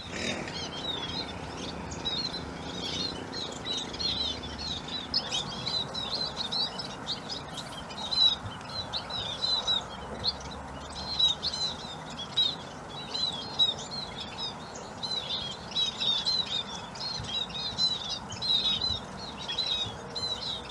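A feeding flock of munias giving many short, high chirps in quick succession, overlapping throughout, over a steady low background noise.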